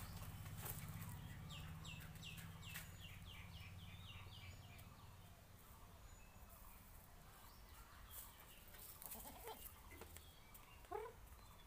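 Quiet goat yard with a run of about a dozen quick, high, falling chirps in the first few seconds. Near the end comes one short, faint bleat from a young goat kid.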